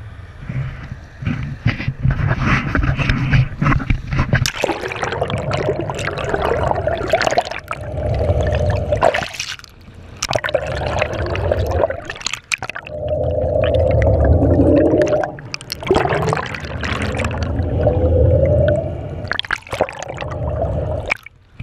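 Muffled rushing and gurgling of water over a submerged camera's microphone, in repeated surges a second or two long, as the camera is dragged through the water beside the boat.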